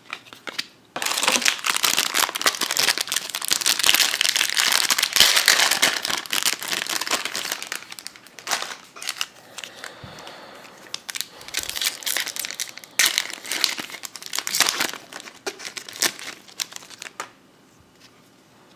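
Pokémon booster pack's foil wrapper crinkling and crumpling as it is handled and torn open, in dense bursts with a quieter stretch about halfway.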